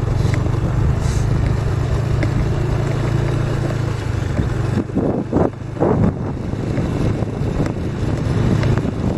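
Motorcycle engine running steadily while being ridden, with wind noise on the microphone. About five to six seconds in, the engine eases off briefly and picks up again.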